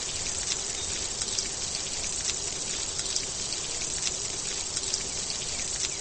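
Rain falling: a steady hiss with scattered sharp drop ticks.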